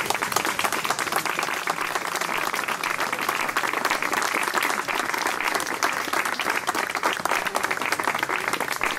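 A group of people applauding steadily.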